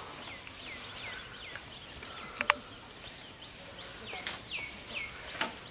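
A bird repeating short falling chirps over a steady high insect drone, with two sharp clicks about two and a half seconds in.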